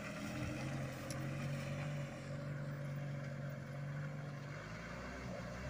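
Old cargo truck's engine running steadily as it pulls along a muddy dirt track, a constant low engine note.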